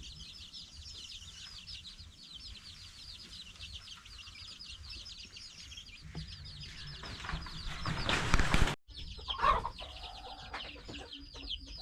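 Chickens peeping and clucking in a steady, rapid stream of high calls. About seven seconds in, a loud rushing noise swells for under two seconds and cuts off suddenly, after which the peeping goes on.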